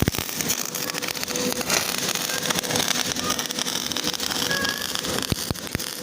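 Electric arc welding crackling and sizzling steadily, with dense rapid clicks.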